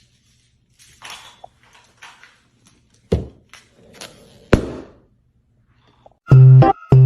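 A few soft knocks and clicks and two thuds, then loud music starts near the end: a repeated pitched note played in short, even blasts.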